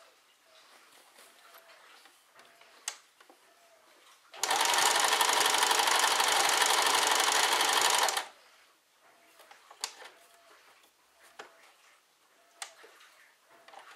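Electric domestic sewing machine stitching a zipper onto fabric, running steadily for about four seconds in the middle and then stopping. Before and after it there are only small faint clicks.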